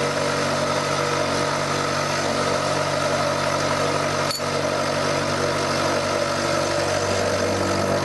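Milling machine running steadily with a constant motor and gear drone while an end mill squares up the end of a steel piece, with a single short click about halfway through.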